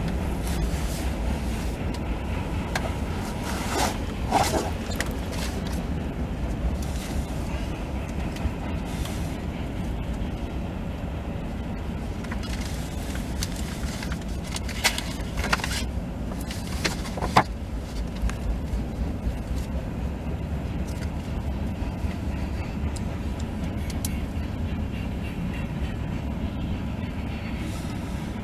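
Steady low rumble of road and engine noise inside a moving car's cabin, with a few short sharp clicks and brief squeaks about four, fifteen and seventeen seconds in.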